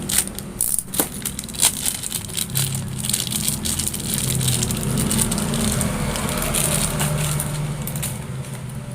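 Scattered plastic clicks and rattles from handling an ink bottle and the printer's ink tank, over a steady low hum.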